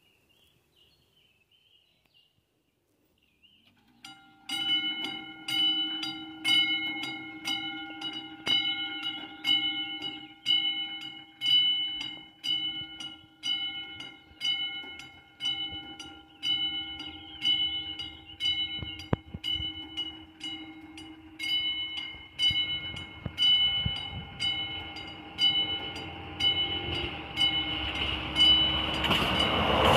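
A level-crossing warning bell of the classic type starts ringing about four seconds in, a steady run of evenly repeated ringing strokes that warns of an approaching train. In the last couple of seconds the noise of the approaching train rises under the bell.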